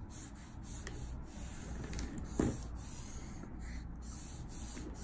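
Copic marker nib rubbing across Strathmore Bristol paper in repeated strokes, with one soft thump about halfway through.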